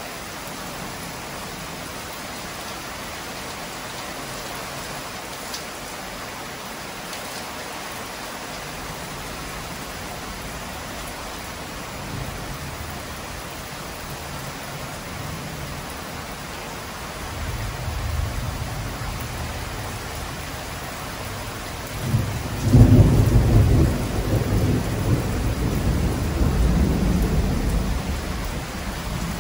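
Heavy rain falling steadily. Thunder rumbles in about halfway through, then a loud clap about two-thirds of the way in rolls on for several seconds.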